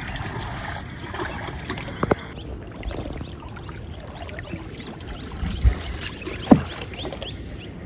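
Water trickling and lapping along the wooden hull of a poled canoe moving through calm water, with a hand trailing in the water beside it. A couple of sharp knocks come at about two seconds and again about six and a half seconds in.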